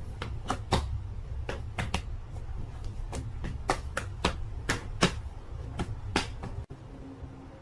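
A cat swatting again and again at a person's hands and face: quick, sharp slaps of paw on skin, about three a second in an irregular patter, stopping shortly before the end.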